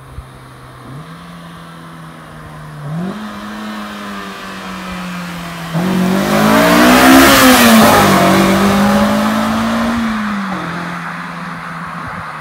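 Honda S2000 inline-four on its stock exhaust under full acceleration as it drives past. The engine note steps up in pitch twice as it approaches, gets suddenly louder about six seconds in, peaks as the car passes, then drops in pitch and fades as it pulls away.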